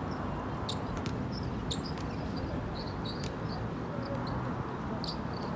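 Steady low outdoor background noise with scattered short, high chirps and a few sharp clicks.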